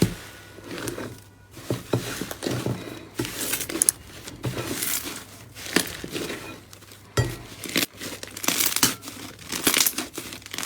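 Slime being squeezed and pulled by hand, giving irregular crinkling and crackling with many sharp pops and clicks.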